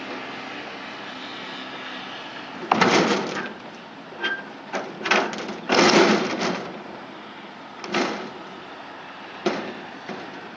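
A series of about seven scraping, knocking noises, likely a deck roof panel being handled and fitted, over a steady background noise. The loudest and longest come about three and six seconds in.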